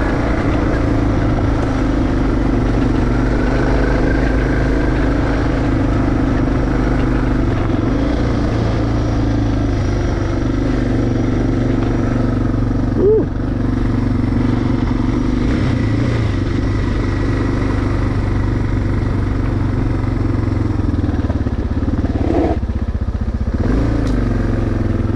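Suzuki DR650's single-cylinder four-stroke engine running steadily as the dual-sport motorcycle rides along, with one brief louder blip about halfway through.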